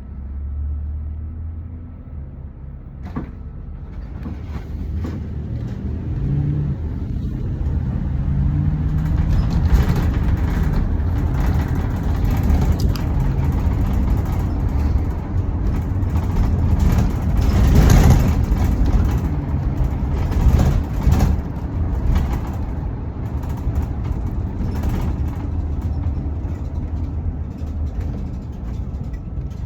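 Road traffic passing, a continuous engine and tyre rumble that builds over the first ten seconds and is loudest about eighteen seconds in, then eases off a little.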